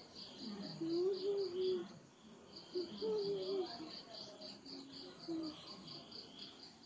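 High, steady insect chirping, about four chirps a second. Twice, around one and three seconds in, a person's brief wordless voice is louder than the chirping.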